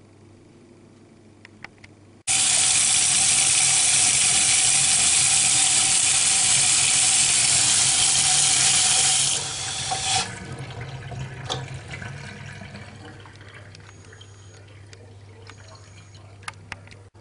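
Water running hard, with a sudden start a couple of seconds in. It holds steady for about seven seconds, then drops off and fades away over the next few seconds. A few faint knocks come before and after it.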